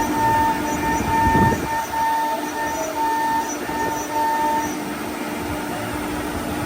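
Single-head CNC router cutting PVC sheet: a steady spindle whine over rough cutting noise. The whine's higher tone breaks off and returns in short stretches, with a brief louder rasp about a second and a half in.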